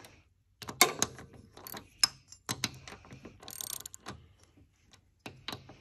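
Hand ratchet clicking in short, irregular runs as the bolts of a tapered collar on a pulley are tightened a few turns at a time.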